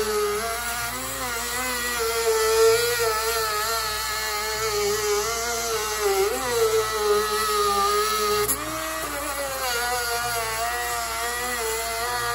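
Black & Decker rotary tool fitted with a small grinding wheel, running at high speed as it grinds out the edge of a round hole in a mower's control panel. Its whine wavers up and down in pitch as the wheel bites, and jumps higher about eight and a half seconds in.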